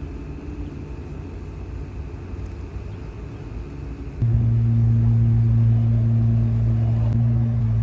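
An engine running with a low rumble; about four seconds in, a much louder steady engine drone cuts in suddenly and holds.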